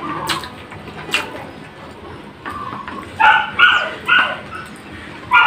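A small dog giving a few short, high yips about three seconds in, over a couple of soft clicks from hands eating.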